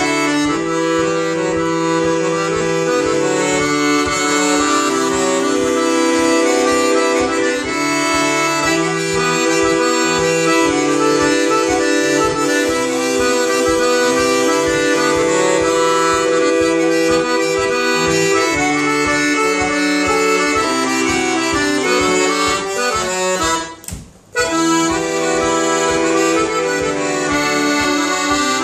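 Piano accordion playing a traditional tune, melody over a pulsing bass, with a brief break in the playing about three-quarters of the way through.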